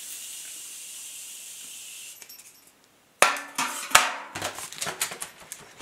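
Morphe setting mist spraying onto a face in one steady hiss of about two seconds, then a few sharp knocks and clicks of the bottle and things being handled.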